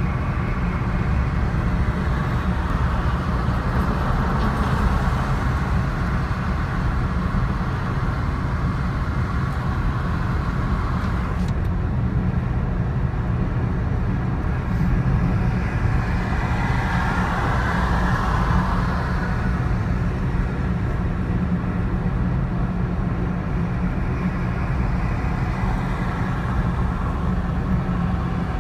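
Steady low rumble of motor-vehicle noise, with a higher hiss swelling and fading twice.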